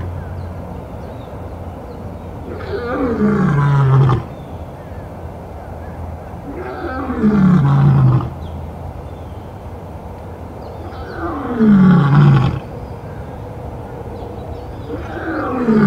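A lion roaring: about four long roars, each sliding down in pitch, repeated roughly every four seconds.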